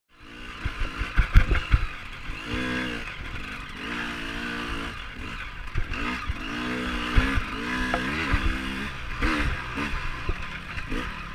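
Off-road dirt bike engines revving up and down in short bursts during a trail crash, with heavy knocks and clatter about a second in and a few more later.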